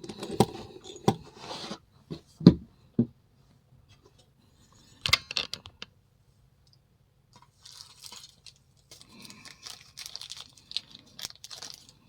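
Handling noise from the picked rim cylinder and lockpicking tools: a run of sharp clicks and knocks in the first three seconds, another short cluster about five seconds in, then softer scraping and rustling as the lock is readied for gutting.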